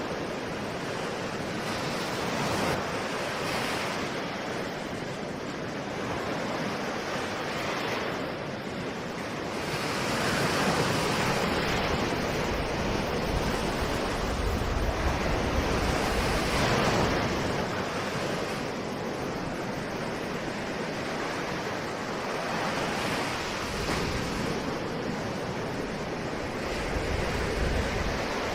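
Ocean surf: a steady wash of breaking waves that swells and recedes every few seconds, with deeper rushes around the middle and near the end.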